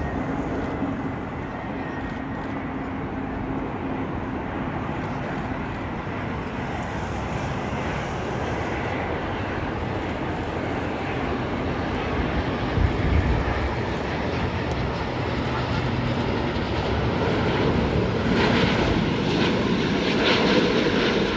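Airbus A350-900 jet airliner on landing approach, its Rolls-Royce Trent XWB engines giving a steady jet rumble that grows louder over the last few seconds as it passes close. A brief low thump about halfway through.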